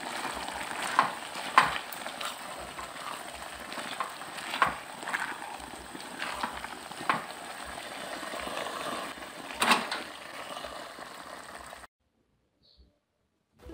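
Squid and vegetables simmering in sweet-and-sour sauce in a pan, with a spatula scraping and knocking against the pan now and then as the food is stirred. The sound cuts off suddenly near the end.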